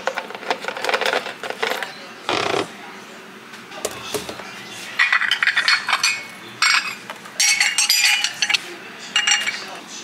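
Small ceramic plates clinking and clattering against one another as they are set into a wicker basket, with scattered knocks at first and a quick run of clinks in the second half.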